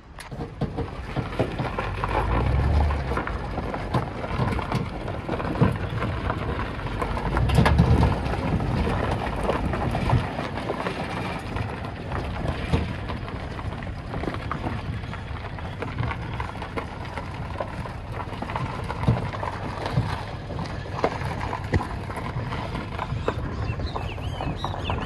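A vehicle on the move: steady road and wind noise with scattered knocks and rattles, and two heavier low rumbles about two and seven seconds in.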